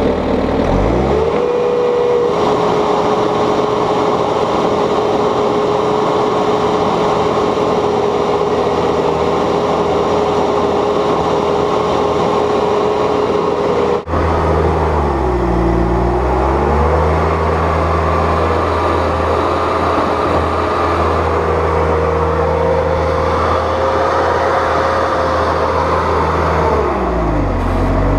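Bobcat S250 skid steer's diesel engine revving up and holding at high revs while the machine works. About halfway through and again near the end, the engine note sags and then recovers as it lugs under load pushing heavy wet loam.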